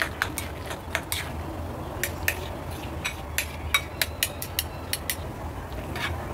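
Chopsticks stirring a sticky minced meat-and-fish filling in a porcelain bowl, clicking against the bowl in quick, irregular taps, several a second, with brief pauses about a second in and near the end.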